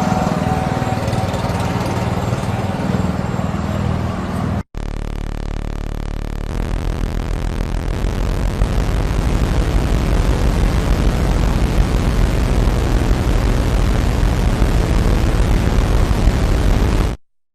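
Harsh, rough buzzing alarm noise from an emergency alert broadcast. It cuts out for a moment about five seconds in, comes back coarser and rattling, and stops abruptly near the end.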